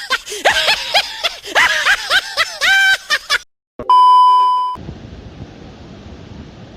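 A quick run of short pitched sounds that rise and fall, then a brief dropout and a loud steady electronic beep lasting about a second. After the beep comes a steady rushing noise.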